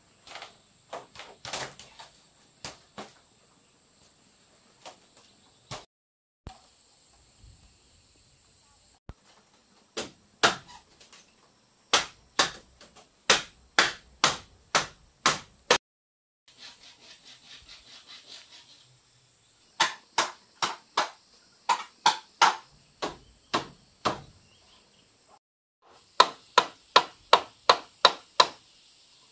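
Repeated sharp knocks of a machete blade striking the bamboo frame of a woven bamboo wall, in runs of about two blows a second broken by short pauses. A steady high insect drone runs behind.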